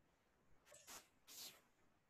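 Near silence with a few faint computer mouse clicks as objects are selected on screen.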